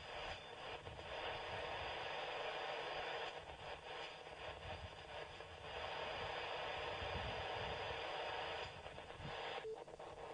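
Static hiss from a Yaesu FT-817 transceiver's speaker in AM mode, with no clear voice in it and a low rumble underneath. The hiss dips in a few places as the weak signal fades, then cuts off near the end; the link has been lost.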